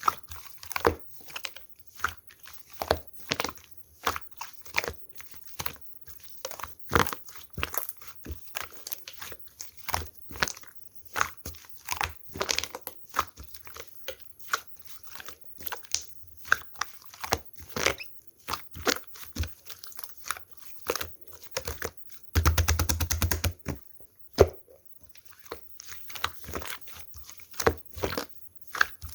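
Slime being squished, pressed and stretched by hand, giving an irregular stream of sharp wet clicks and pops. About two-thirds of the way in comes a dense rattle of quick pops lasting about a second.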